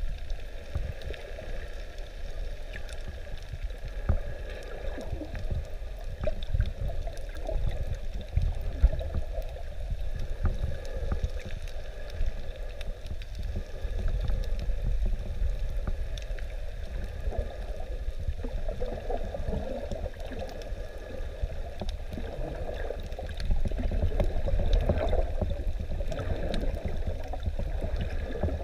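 Muffled underwater noise heard through a submerged camera: a steady low rumble with gurgling water and faint scattered clicks, growing louder for the last few seconds.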